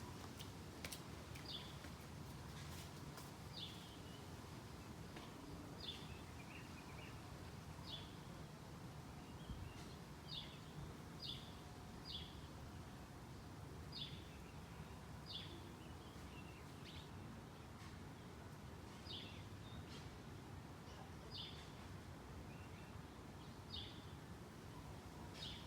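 A bird giving short, high chirps over and over, about one a second, each dropping quickly in pitch, over faint outdoor background noise.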